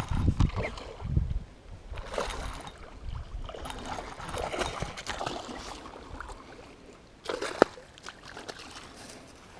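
Water splashing and trickling, with scattered knocks and handling sounds and one sharp click about seven and a half seconds in.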